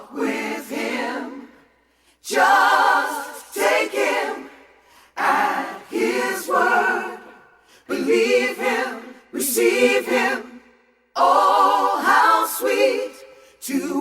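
A cappella gospel choir singing in short phrases with brief breaks between them, voices only and no instruments.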